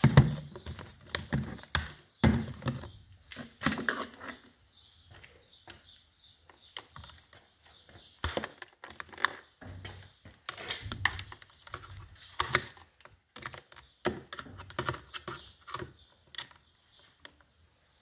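Irregular clicks, taps and knocks of a hard plastic battery case being handled and set down on a workbench, with a sharp knock right at the start.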